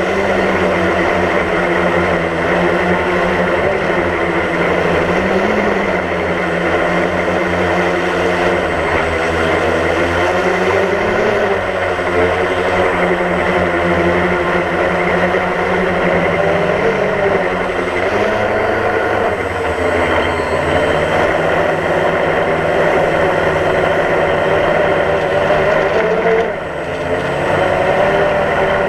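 DJI Phantom quadcopter's four electric motors and propellers buzzing steadily, heard close up from the camera the drone carries. The pitch drifts up and down as the drone manoeuvres, and the level dips briefly near the end.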